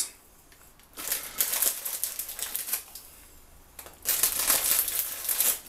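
Coarse sea salt crackling and rustling as it is pinched from a bag and crumbled by hand onto a raw steak, in two spells: a short one about a second in and a louder one from about four seconds in.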